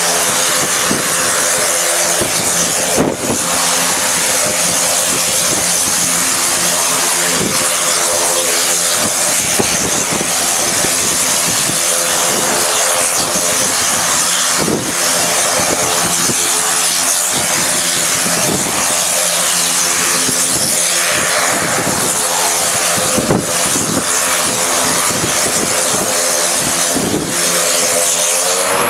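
Honeywell Garrett TPE331 turboprop of a de Havilland DHC-3 Otter running at ground idle with the propeller turning: a steady engine drone with a broad hiss over it. Near the end the pitch starts to climb as the engine begins to spool up for the take-off run.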